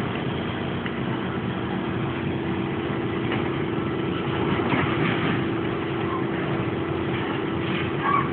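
An engine idling steadily with a constant low hum, with scattered faint knocks and a brief sharper knock near the end.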